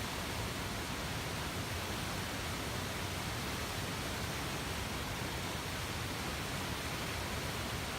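Steady, unbroken rushing of the Upper Tahquamenon Falls, an even roar spread across all pitches that holds at one level throughout.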